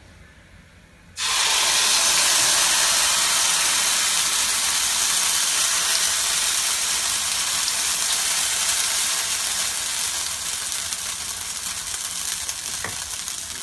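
Green-corn roti batter hitting a hot pan and sizzling loudly, starting suddenly about a second in and easing off a little over the following seconds.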